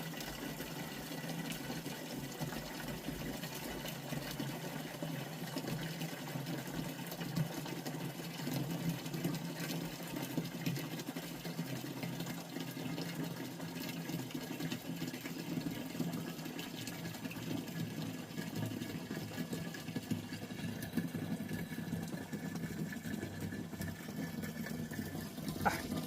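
Water running steadily from a tap into a plastic water jug, filling it. The flow stops with a short knock near the end.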